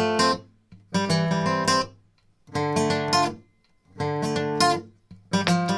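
Background music: acoustic guitar strumming chords in short phrases that come about every second and a half, each dying away into a brief pause.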